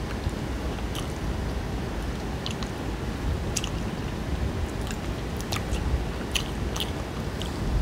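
Close-up chewing of crispy fried bone-in fish, with small crunches and clicks scattered through.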